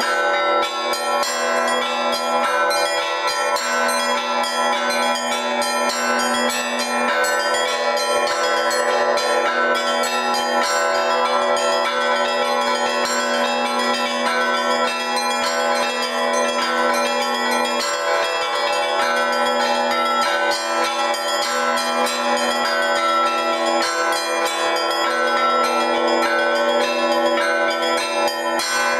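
Russian Orthodox church bells played in a dense, unbroken zvon by a single ringer. Rapid strikes on the small bells ring over the steadily sounding larger bells, and their tones overlap and sustain.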